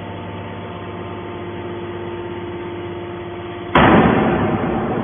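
Hydraulic metal baler running with a steady hum, then a sudden loud metallic bang near the end that dies away over a second or so.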